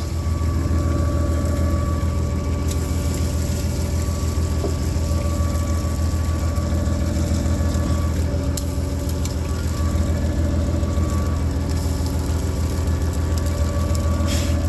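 A heavy machine's engine running steadily at one speed, with a deep, even hum.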